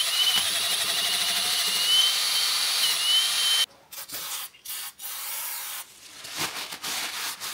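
Cordless drill spinning a steel wire brush against the rusty wheel-bearing bore of a steering knuckle: a steady rasping scour with the drill's whine, stopping just under four seconds in. Then a few short hisses from an aerosol spray can.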